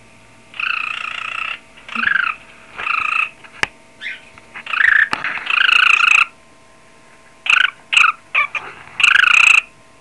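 Cockatiel imitating a ringing telephone: a series of short, loud trilling bursts with quiet gaps between them, about eight in all, the longest lasting a second or more.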